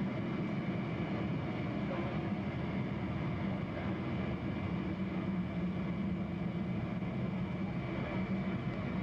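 Airliner engines and cabin noise heard from inside the cabin while the plane taxis on the ground: a steady low drone that holds even throughout.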